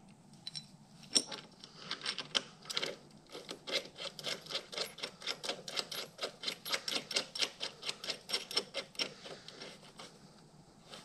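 Metal clicks as a nut is worked on an outboard motor's throttle linkage: a few separate clicks in the first seconds, then steady clicking about five times a second for some six seconds, typical of a ratchet wrench running a nut down, stopping shortly before the end.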